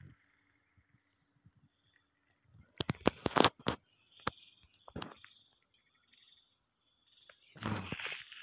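Steady high-pitched chorus of insects. A quick cluster of sharp knocks about three seconds in is the loudest sound, with a couple more single knocks after it and a duller thump near the end.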